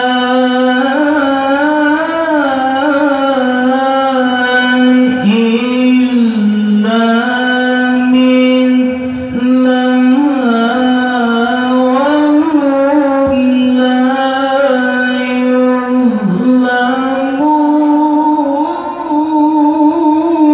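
A male qari's high voice reciting the Quran in the melodic tilawah style into a hand-held microphone, holding long notes decorated with quick ornamental turns and glides. Brief breath breaks separate the phrases, and the pitch steps up higher about three-quarters of the way through.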